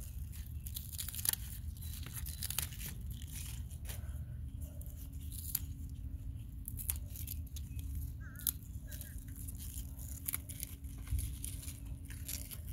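Spinach leaves and stems rustling, crackling and snapping as seedlings are pinched off by hand to thin them: a scattered series of short crackles over a low, steady rumble.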